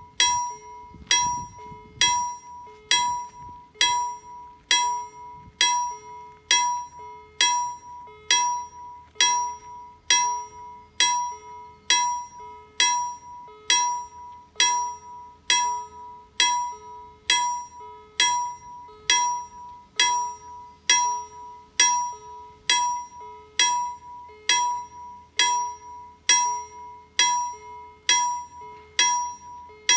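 KLD-40 electromechanical level-crossing warning bell striking a single clear note about once a second, each strike ringing on until the next. It is sounding while the crossing's barriers are down: the warning that a train is approaching.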